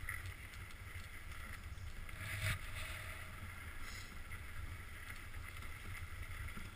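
Dog sled gliding over snow: steady hiss of the runners with a low rumble, and one brief louder scrape or bump about two and a half seconds in.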